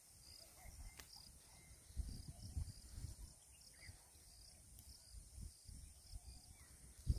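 Quiet open-air riverbank ambience: uneven low rumbling of wind buffeting the microphone, with a faint high chirping that repeats a few times a second and a single sharp click about a second in.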